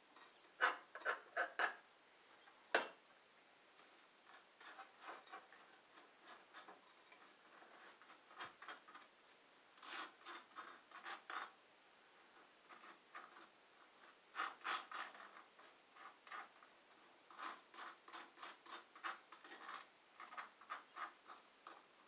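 Faint dry scraping and clicking in short irregular clusters, typical of a knife scraping peanut butter out of a nearly empty jar and spreading it on toast.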